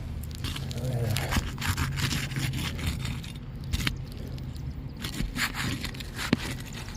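Asphalt roof shingles being pried up, giving irregular scraping and crackling as the sealant strip holding them down tears away. The shingles are ripping rather than releasing cleanly. A low steady hum runs underneath.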